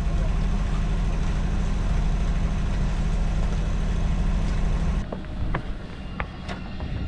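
A sailboat's auxiliary engine running steadily, then dropping off sharply about five seconds in, followed by a few sharp clicks.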